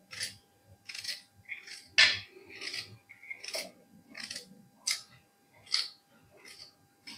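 Knife chopping red onion finely on a plate, in quick irregular strokes about two a second, each a short clack of the blade meeting the plate; one stroke about two seconds in is the loudest.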